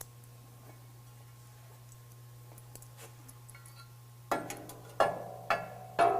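Metal parts clanking against a pickup's steel frame rail as hardware is fitted: about four seconds of quiet, then four sharp ringing clanks roughly half a second apart.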